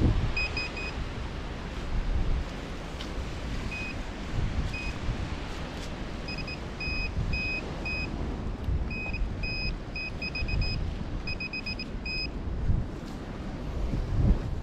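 Handheld metal-detecting pinpointer beeping with short high beeps as it is probed through beach sand and debris, sometimes once, sometimes in quick runs of three to five, signalling metal close to its tip. Wind rumbles on the microphone underneath.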